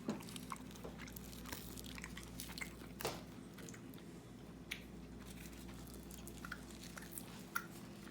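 Someone chewing dried, salted walleye close to the microphone: faint, scattered small crackles and clicks of the dry fish. A steady low hum lies underneath.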